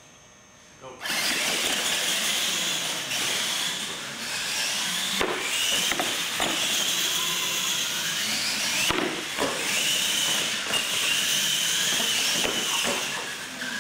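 R/C monster trucks launching about a second in and racing across a concrete floor: a high motor-and-gear whine that rises and falls with the throttle, with tyre squeal and several sharp knocks as the trucks hit and land off the ramps.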